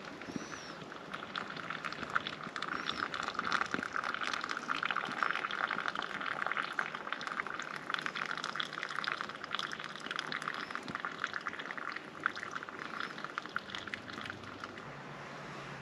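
Hot water poured in a thin steady trickle from a small kettle into a collapsible silicone cup, brewing coffee, stopping about a second before the end.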